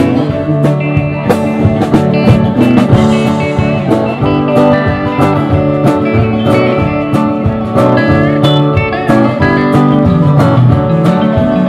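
Country band music: an instrumental passage of guitars, including a slide guitar, over a steady drum beat.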